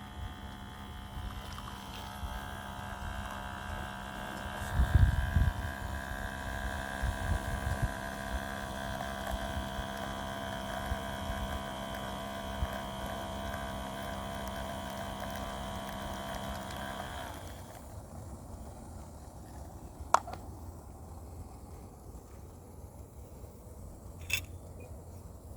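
A handheld battery nanofoamer milk frother running with a steady, slightly wavering whine as it foams milk, cutting off about seventeen seconds in. There are a few dull knocks about five seconds in, and two sharp clicks near the end.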